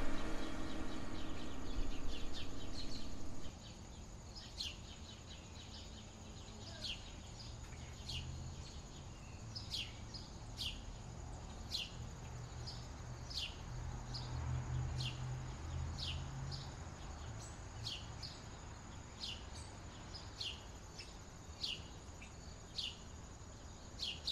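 Music ends about three seconds in, leaving countryside ambience: short falling bird chirps repeated every second or so over a steady high insect drone and a faint low rumble.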